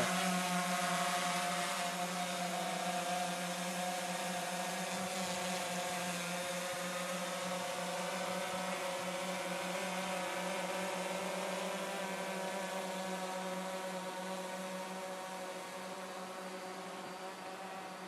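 Quadcopter drone's propellers and motors humming steadily in flight, a buzzing drone with several fixed pitches over a rushing hiss, slowly growing fainter.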